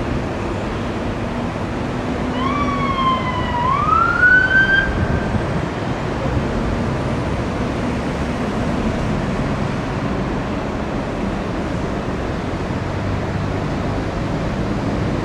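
Steady freeway traffic noise, with one short police siren sweep about two seconds in that dips slightly and then rises in pitch, from a California Highway Patrol motorcycle slowing traffic for a traffic break.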